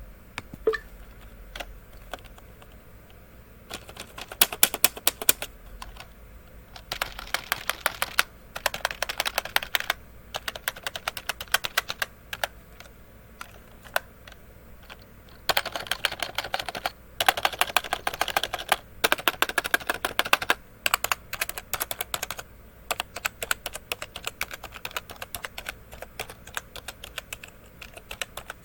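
IBuyPower computer keyboard being sound-tested: keys clicking singly and in several fast runs of rapid keystrokes lasting a second or two each.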